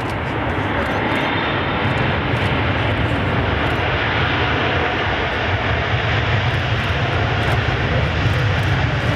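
Engines of a Boeing 777-300ER airliner rolling out along the runway just after landing: a loud, steady jet noise that builds slightly in the first second.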